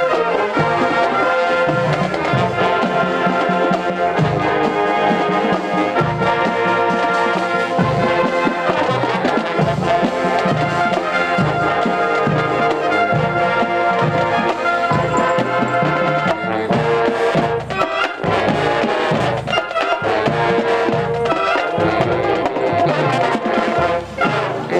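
A brass band playing, horns holding notes over a steady low beat, with a brief drop in level near the end.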